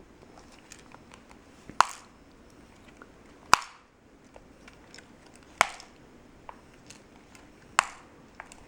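Capuchin monkey biting and prying at a TV remote control to tear its buttons off: four sharp snaps about two seconds apart, with faint clicks and chewing between.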